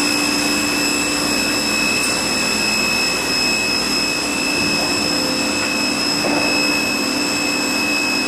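Rüsch RDU beam drilling and sawing line running: a steady mechanical rush with a constant low hum and several high steady whines.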